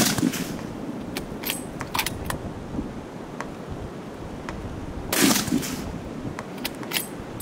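Two hunting-rifle shots about five seconds apart, the first right at the start, each with a short echo trailing off; sharp metallic clicks come between the shots and after the second.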